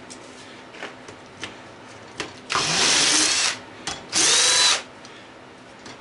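Ryobi cordless drill/driver run in two bursts of about a second each, backing fasteners out of a garbage disposal's housing; the second burst rises in pitch as the motor spins up. A few light clicks come before the bursts.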